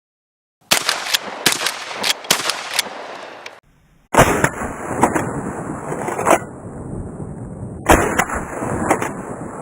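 Shotgun shots fired in rapid succession, several a second, in two runs broken by a short gap.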